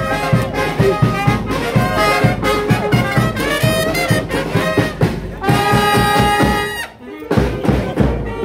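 Brass band playing a lively tune, trumpets and trombones over a steady drum beat. The band holds one long chord about five and a half seconds in, breaks off briefly around seven seconds, then plays on.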